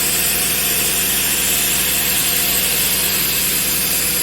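AKM1325 ATC CNC router's spindle running steadily as it machines a stainless steel workpiece: a constant cutting noise with a strong high hiss and a few steady tones.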